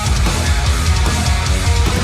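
Heavy rock music with distorted electric guitar and a driving low end.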